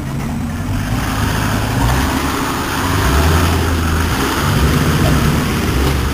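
Engine of a Toyota Land Cruiser 70-series off-roader working close by as it crawls over rough dirt. The low engine note rises and falls with the throttle.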